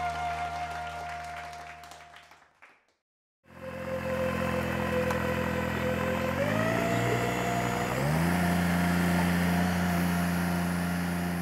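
A music sting fades out, and after a brief silence the engine of an aquatic weed-harvester boat runs steadily. It speeds up twice in steps, then holds at the higher pitch.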